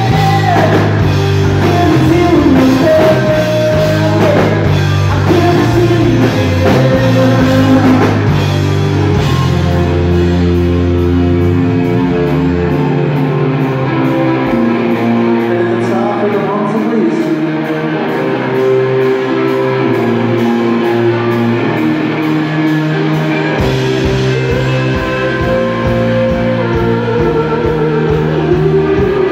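Live rock band playing electric guitar, bass guitar and drum kit, with a male lead vocal. The bass end drops away for about ten seconds in the middle, then the full band comes back in.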